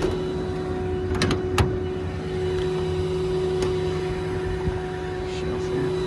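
Engine idling steadily in the background, with a few sharp clicks a little over a second in.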